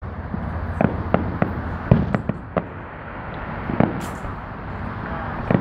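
Fireworks display: aerial shells bursting in a string of sharp, irregularly spaced bangs, about eight of them, with a brief hiss about four seconds in.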